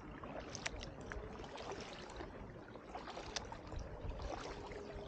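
Kayak paddling: paddle blades dipping and dripping in the water, with two sharp taps, one under a second in and one a little over three seconds in.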